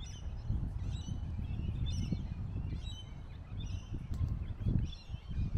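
Birds calling in a series of short, repeated chirping notes over a low steady rumble.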